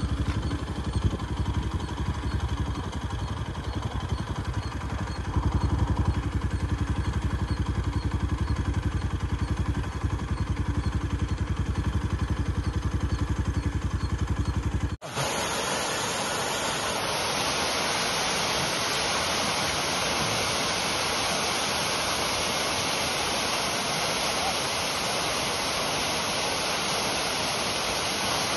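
A vehicle engine runs with a steady low throb, a little louder from about five seconds in. About fifteen seconds in it cuts off abruptly to the steady rush of a waterfall.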